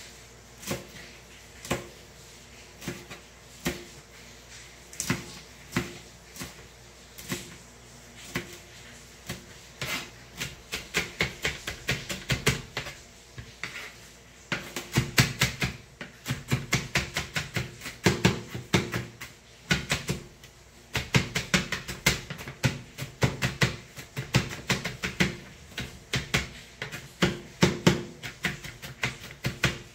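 Kitchen knife chopping on a plastic cutting board. For the first ten seconds the strokes come singly, about one a second. After that they come in fast runs of several chops a second, mincing finely.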